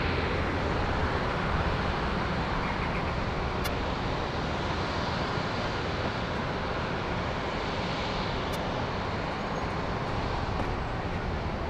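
Aircraft engines running, a steady even rush with no rise or fall. Twice there is a faint electronic blip: interference picked up by the microphone from a nearby LED billboard.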